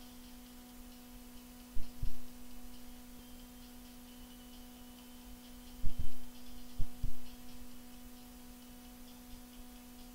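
A steady electrical hum with a few pairs of dull low thumps: one pair about two seconds in, and two more around six and seven seconds in.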